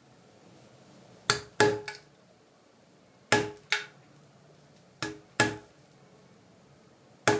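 Mallet striking a hole-punching tool through layers of glued leather: sharp knocks in pairs about every two seconds, seven strikes in all.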